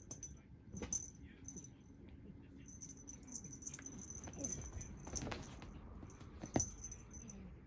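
A small bell, as on a cat toy, jingling on and off while the toy is played with, with light scuffling and a few sharp knocks, the loudest near the end.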